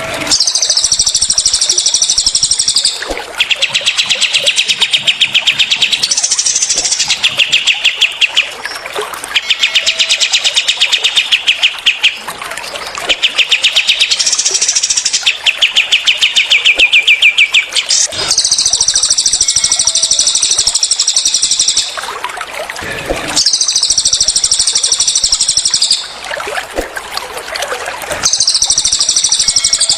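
Songs of the cililin and the kapas tembak, two Indonesian songbirds, on a bird-song training recording. Long, dense, high-pitched song phrases of a few seconds each alternate with fast trills of rapidly repeated notes, with only short gaps between them.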